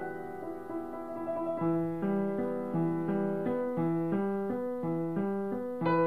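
Background piano music, a slow line of held notes that moves on in a steady pace from about a second and a half in.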